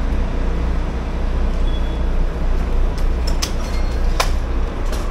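A city bus engine idling steadily with a low hum, its door open at the stop. A brief high beep sounds about a second and a half in, and a few sharp clicks and knocks come near the end.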